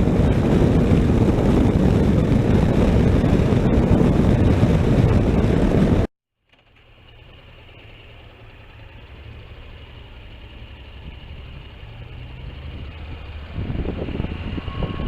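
Riding noise from a Honda NC700X motorcycle, loud rushing wind and road noise. About six seconds in it cuts out abruptly, then returns much quieter as a low steady engine hum with wind building toward the end.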